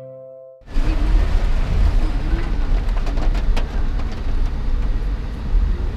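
Background music fading out, then a car on the move: steady low road rumble with wind and road noise and a few light clicks.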